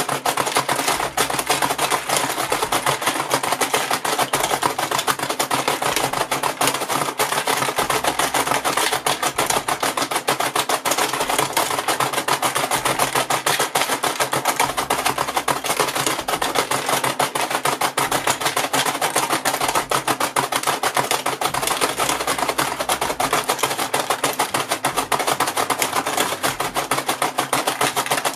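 Plastic toy racing game clacking rapidly and without a break as its two push buttons are hammered by hand, sending the pup figures and small gumballs along its tracks.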